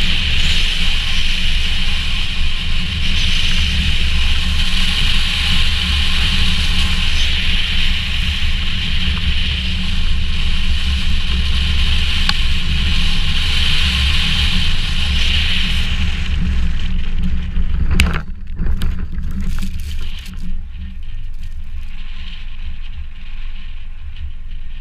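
A car driving fast on a snow-covered road, heard from a camera on its roof: a steady rush of wind and road noise over a low rumble. About eighteen seconds in there is a sharp knock, and after it the sound is quieter.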